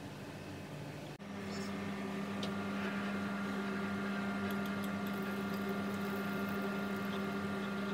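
A steady low electrical hum with a few fainter higher tones, starting suddenly about a second in, with a few faint ticks over it.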